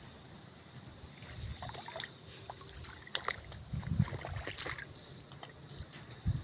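Faint sloshing and squelching of someone wading through shallow water and mud, with scattered small clicks and a few soft low thumps.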